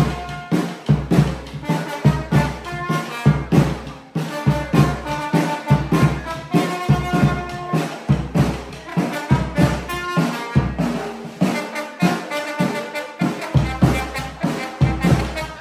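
Live trombone playing a melody over a bass drum struck with a mallet in a steady beat: a band rehearsing a tune.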